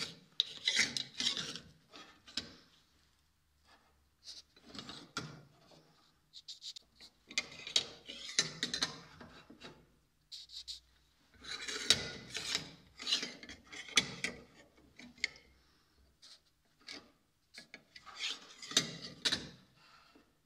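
A marker pen drawn along a steel sheet against a sliding square, with gloved hands shifting the sheet and square on a plywood bench: scraping and rubbing in about five stretches of a second or more, with short pauses between.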